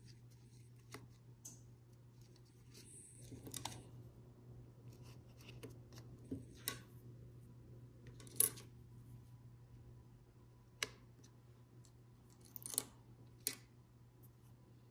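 Small mosaic tiles tapping and clicking as they are picked up and set down on a hard countertop and into a coaster tray. The taps come at uneven intervals, the loudest about eight seconds in, over a low steady hum.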